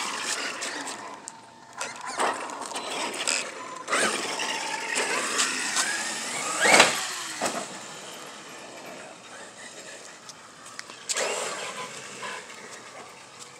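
Traxxas X-Maxx RC monster truck's brushless electric motor whining up and down as it accelerates and slows, with tyres scrubbing and clattering on concrete. About seven seconds in there is a loud rising-then-falling whine as it runs hard close by.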